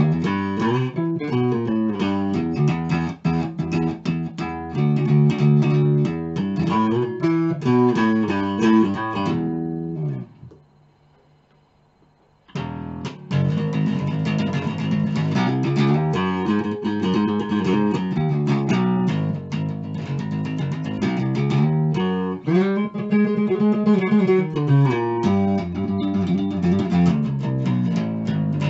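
Electric bass guitar, a Chinese copy of a Rickenbacker neck-through bass, played fingerstyle in a busy run of plucked notes. The playing stops for about two seconds around ten seconds in, then starts again.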